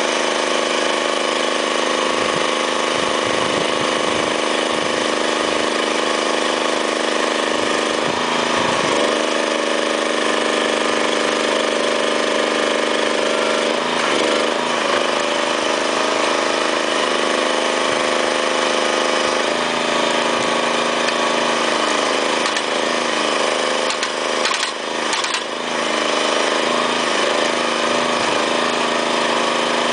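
Small engine on a well-abandonment rig running steadily to drive its hydraulic puller, its note dipping and shifting a few times as the rig pulls the monitor well casing up out of cement grout.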